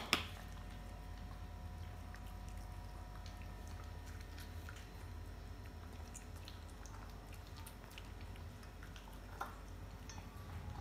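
A shih tzu and another small dog eating canned meatball dog food from plastic plates, with quiet chewing and faint scattered clicks over a low steady hum. A sharp double knock at the very start is the loudest sound.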